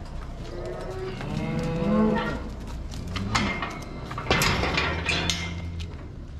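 A cow mooing, one long call that bends up and down in pitch, followed by a few sharp knocks in the second half.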